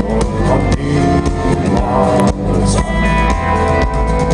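Live country-rock band playing an instrumental passage: strummed acoustic guitar, electric guitars, bass and a drum kit keeping a steady beat.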